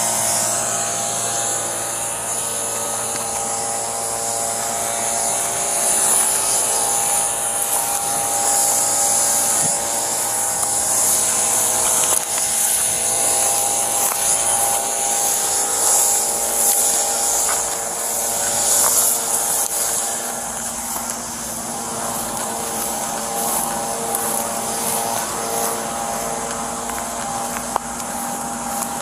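A steady mechanical drone: a constant hum made of several fixed tones under a high hiss, easing off a little about two-thirds of the way through.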